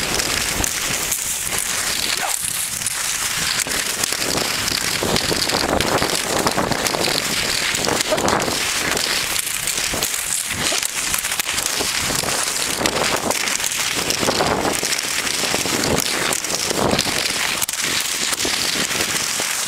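Cross-country skis hissing and scraping over snow, with a rough rhythm of strides about once a second.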